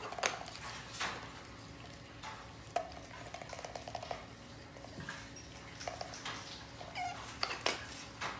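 An otter and a duck feeding from a steel bowl of kibble: sharp taps and clinks of bill and paws against the metal bowl, mixed with short squeaky animal calls. A rapid pulsing call runs for about a second and a half, starting about three seconds in.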